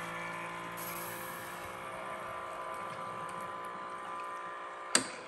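Bartesian cocktail maker running steadily with a whirring hum as it pumps and dispenses a margarita into the glass. A sharp click comes near the end, and the running then dies away.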